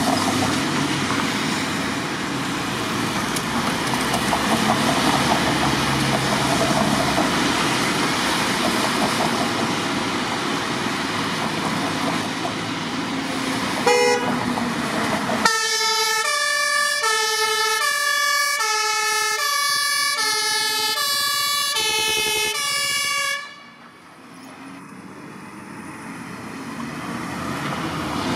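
Street traffic noise with a vehicle engine, then a German fire engine's two-tone siren (Martinshorn) sounding an alternating high–low pattern for about eight seconds before cutting off suddenly. A short tonal blip comes just before the siren starts.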